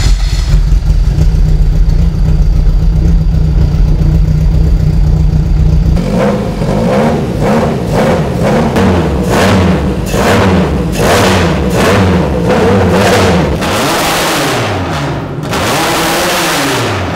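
Freshly swapped four-cylinder engine in a Toyota AE86, breathing through individual intake trumpets, running on fuel at last: a steady idle for about six seconds, then revved again and again, the pitch rising and falling with each blip of the throttle.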